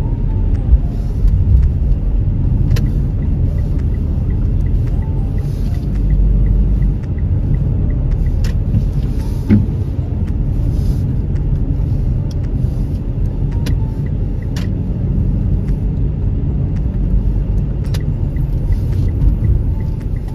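Car cabin road noise: a steady low rumble of the car driving, with a few light clicks and a windshield wiper sweep about ten seconds in. A faint regular ticking comes through near the start and again near the end.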